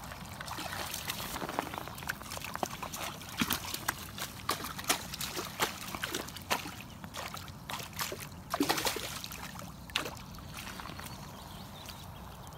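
A small hooked perch splashing and thrashing at the water's surface, then being scooped up in a landing net, with irregular sharp splashes and drips. The splashing stops about ten seconds in.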